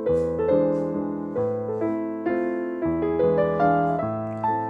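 Background piano music: a slow run of sustained notes over a bass note that changes about every second and a half.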